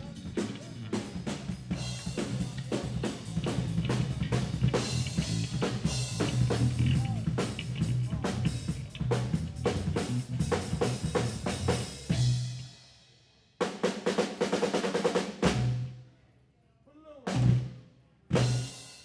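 Drum kit played at a live sound check: rapid, dense hits across the kit for about twelve seconds, then a stop. A short burst of playing follows, and two single heavy hits come near the end.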